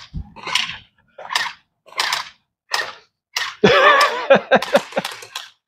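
Gel ball blasters firing: sharp shots, each a short crack, about one every 0.7 seconds. Past the halfway point there is a quicker run of shots with a person's shout over them.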